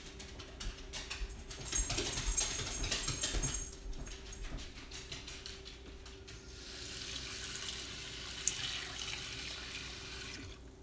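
Water running from a kitchen tap in two spells: a splashy couple of seconds about two seconds in, then a steadier run of about four seconds from the middle that stops shortly before the end.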